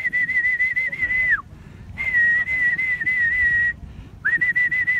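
Whistling in long blasts at one steady, slightly warbling pitch, three in a row with short gaps between them, used by a pigeon fancier to call racing pigeons down into the loft.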